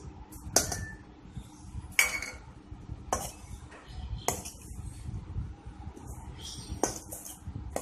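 A metal spoon stirring a chunky fish and vegetable filling in a stainless steel mixing bowl: low scraping, broken by about six sharp clinks of the spoon against the bowl at irregular intervals, one of them ringing briefly.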